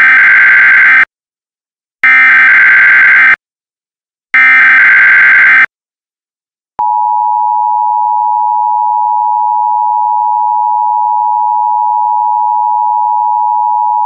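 Emergency Alert System header: three loud bursts of screeching SAME data tones, each about a second long, then a steady two-tone attention signal that holds for about seven seconds. Together they announce an Emergency Action Termination.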